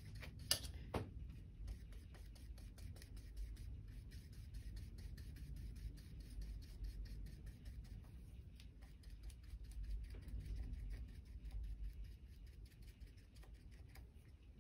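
Faint scraping and light clicking of a tool stirring acrylic paint in a plastic palette well, with a couple of sharper clicks about half a second and a second in, over a low room rumble.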